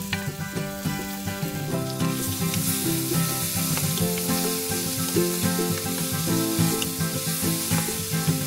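Onion, ginger and tomato sizzling as they fry in an aluminium wok, stirred with a wooden spatula that now and then clicks against the pan. The sizzle gets brighter about two seconds in. Background music with held notes plays throughout.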